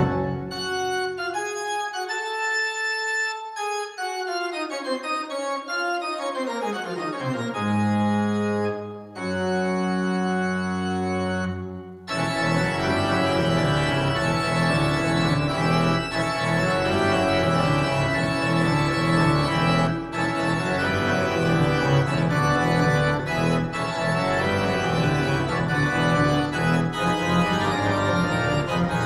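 Church organ playing sustained chords. The bass drops out for the first several seconds while a line steps downward in the upper notes. After a brief break about nine seconds in, fuller, louder chords with deep pedal bass come in about twelve seconds in and hold.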